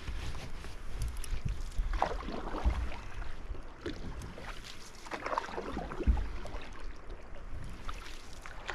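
Canoe paddle strokes: a paddle swishing and pulling through the water about every three seconds, over a steady low rumble of wind on the microphone.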